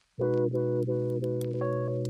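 Background music: sustained chords over a steady low bass note. It starts after a brief silence at the very beginning.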